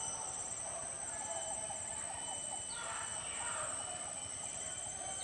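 Insects trilling steadily in a high, pulsing drone. Faint wavering calls sound in the first half.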